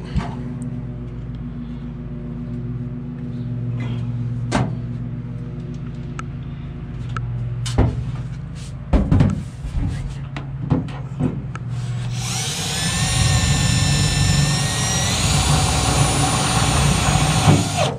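Cordless drill running for about six seconds near the end, a high whine worked against the car's steel floor pan. Before it, a few sharp knocks and taps from handling on the floor, over a steady low hum.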